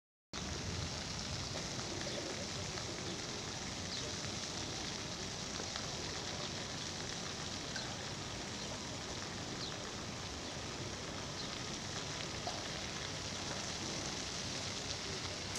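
Steady outdoor background hiss picked up by the camera's microphone, cutting in abruptly after silence, with a few faint ticks.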